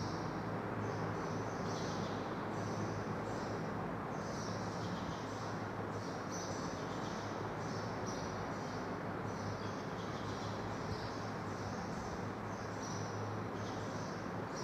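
Marker pen squeaking and scratching on a whiteboard in short, irregular strokes, over a steady low hum and hiss of room noise.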